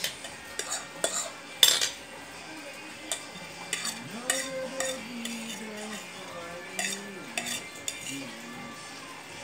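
Metal fork clinking and scraping against a bowl while noodles are stirred and scooped up, in a scatter of separate sharp clicks.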